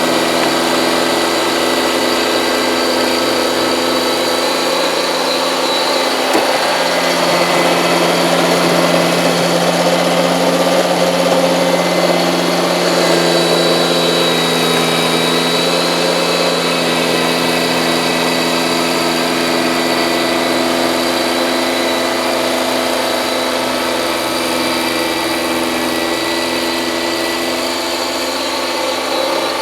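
Kubota compact tractor's diesel engine running steadily, driving its front-mounted snowblower, with a thin high whine above the engine note.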